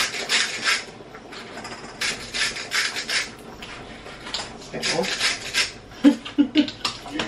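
Hand-held salt and pepper grinders being twisted over salmon fillets, grinding in several short bursts about two seconds apart.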